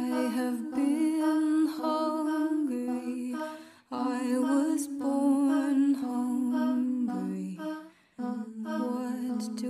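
Music track of a slow, wordless hummed vocal melody, with short breaks about four and eight seconds in.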